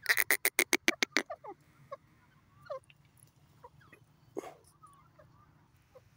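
Grey francolin calling: a rapid run of short, harsh notes in the first second or so, then a few falling notes. After that come scattered soft chirps, with one louder note about four seconds in.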